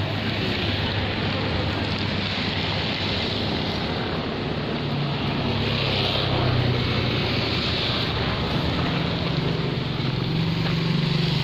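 Steady wind noise on the microphone, with a motor vehicle's low engine hum that grows louder in the second half.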